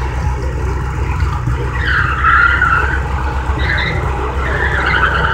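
A car's tyres squealing as it slides through a slalom course, in two long squeals about two seconds in and again near the end, over a steady low rumble.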